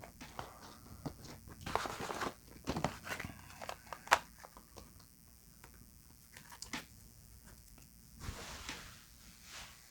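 Cardboard boxes being handled and set down on a table: scattered light knocks, taps and short rustles, a few louder ones about two, three and four seconds in.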